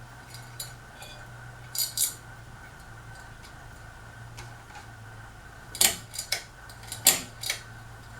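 Hampton Bay Maplewood ceiling fan running on low speed with a steady motor hum. Light metallic jingling and clicks from its pull chain come about two seconds in and again several times from about six seconds on.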